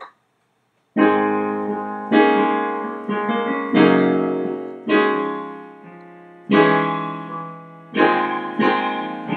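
Piano chords played slowly as a song intro, starting about a second in; each chord is struck and left to ring and fade before the next, one every second or so.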